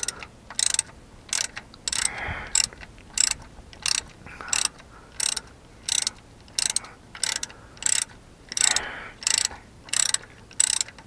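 Socket ratchet clicking in short bursts, about one and a half a second, as each back-stroke winds out a loosened starter-motor mounting bolt.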